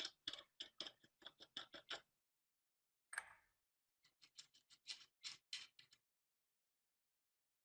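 Two runs of quick, light clicks, about five a second, with a single short scrape-like burst between them.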